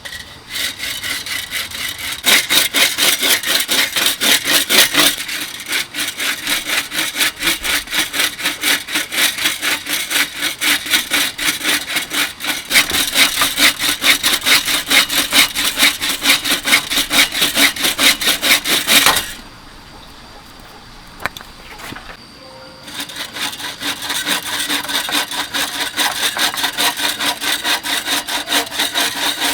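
Hand saw cutting through bamboo in rapid, even back-and-forth strokes. The sawing stops for a few seconds about two-thirds of the way through, then starts again.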